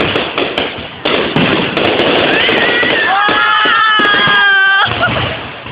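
Fireworks going off in a dense crackling barrage, with sharp pops throughout. About three seconds in, a high-pitched wail holds for about a second and a half and cuts off sharply.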